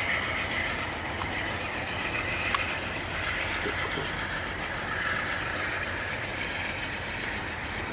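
Amtrak Pacific Surfliner passenger train: steady running and rail noise with no change in level, a sharp click about two and a half seconds in, and a faint rapid high-pitched pulsing throughout.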